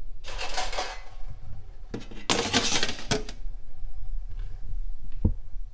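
Metal clattering and rattling as a wire rolling cage is handled and fitted inside an air fryer oven. It comes in two short bursts, with a sharp click near the end.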